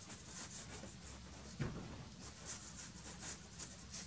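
Soft pastel stick dabbing and scraping on pastel paper in quick short strokes, faint and scratchy.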